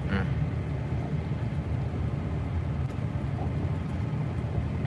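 Steady low rumble of a car driving along, engine and road noise heard from inside the cabin.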